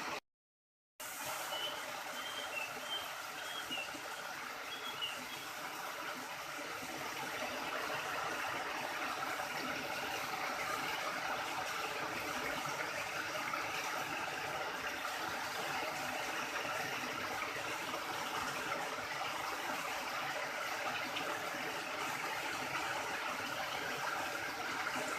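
Steady rush of river water flowing, with a brief total dropout just after the start and a few faint high chirps in the first seconds.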